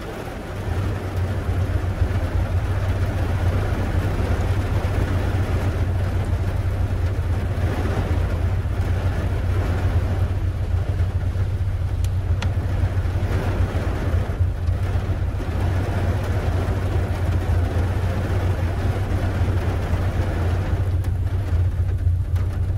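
Tofaş saloon's engine idling steadily, heard from inside the cabin as a constant low drone, with rain pattering on the car's body and windows.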